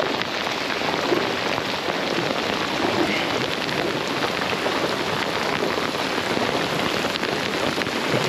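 Rain falling steadily, an even, dense patter of drops.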